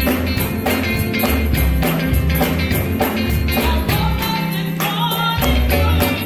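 Upbeat music with a steady beat, bass and tambourine, with some singing near the end.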